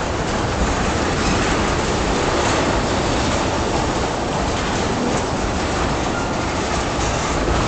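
Loaded ethanol tank cars of a freight train rolling steadily past, a constant noise of steel wheels running on the rails.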